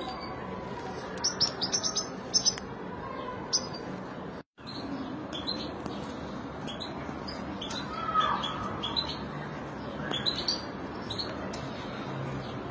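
European goldfinches chirping: quick clusters of short, high calls, with a brief break in the sound about four and a half seconds in.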